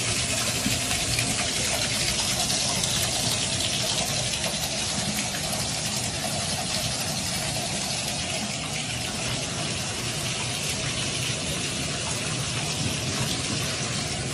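Bathtub faucet running, a steady stream of water splashing into the tub and onto a cat standing under it.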